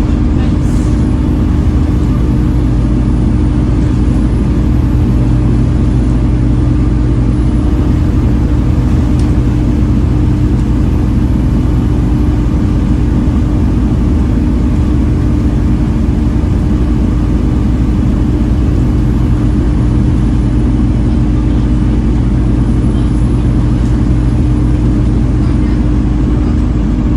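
Volvo B7TL double-decker bus under way, heard from on board: its engine drones steadily with a constant whining tone, the 'hoover' whine these buses are known for, and a faint high whine that slowly rises and falls.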